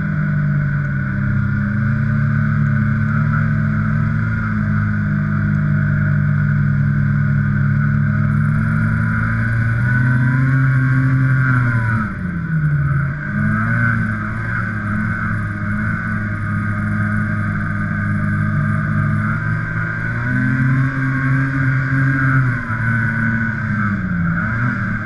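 Snowmobile engine running steadily under way, its pitch rising and falling back twice as the throttle is opened and eased off.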